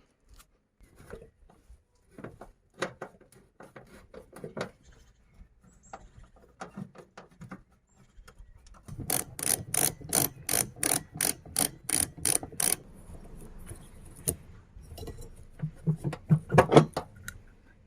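A ratchet wrench clicking in a steady run of about three or four clicks a second while a wiper arm nut is undone, with scattered clicks and knocks of tools and parts before and after.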